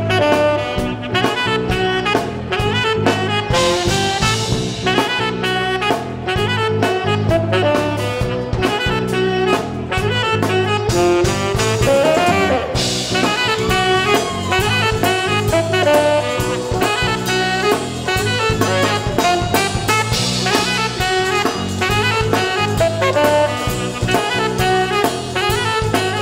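Live funk-jazz band playing: tenor saxophone over electric guitar, bass and drum kit, heard as a direct soundboard mix.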